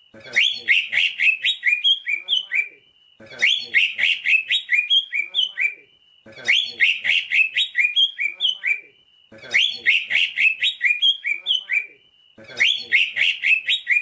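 Green leafbird (cucak ijo) song: a rapid run of sharp, chirping notes about two and a half seconds long, then a short pause. The same phrase comes back about every three seconds, five times over.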